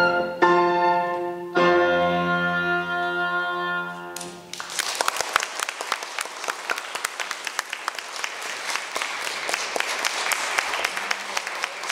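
Oboe and piano playing two short closing chords and then a long final chord, which ends about four seconds in. An audience then applauds.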